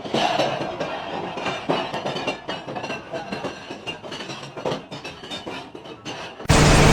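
Irregular knocking and metallic clinking over a steady rumbling noise. Near the end it is cut off by a much louder sound with steady tones, most likely music.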